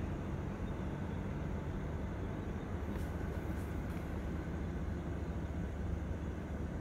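Steady low rumble of distant jet aircraft engines, with aircraft taxiing and landing across the airport.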